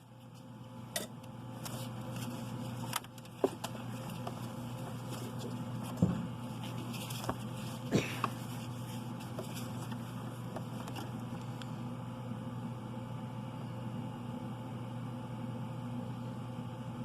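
Hand work on engine parts: a few scattered clicks and knocks of tools and parts being handled, over a steady low hum.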